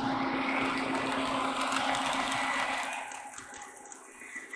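K-Line O-27 toy steam locomotive pulling freight cars on three-rail track: a steady motor hum and rolling noise that eases off about three seconds in.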